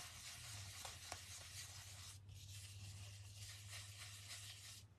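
Faint, soft scratchy rubbing of an ink blending brush worked lightly over a paper mask and cardstock.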